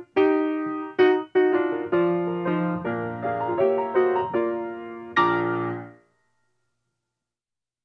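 Background piano music: a melody of struck notes that ends on a final chord about five seconds in, which dies away within a second, followed by silence.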